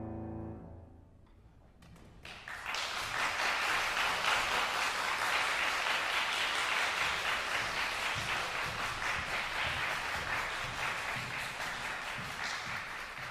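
The final chord of a Steinway grand piano decays away. About two seconds later, an audience breaks into applause that keeps going steadily.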